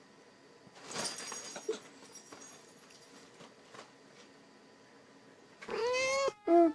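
A brief rustle about a second in, then near the end a cat meows twice, two loud calls that bend in pitch.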